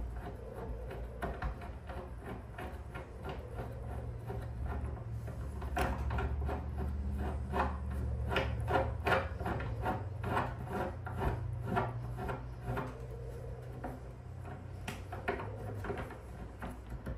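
Threaded stem of a spherical ball caster being screwed by hand into a steel tee nut in a wooden chair leg, by turning the caster's raceway: a run of scratchy rubbing and small clicks of metal threads and the metal housing under the fingers, busiest in the middle, over a low hum.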